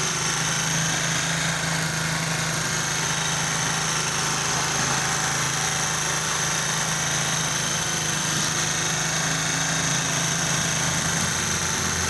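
China-made 70cc single-cylinder four-stroke motorcycle engine of the Honda CD70 type idling steadily, with a new timing chain, tensioner rod, tensioner roller and oil pump gear just fitted.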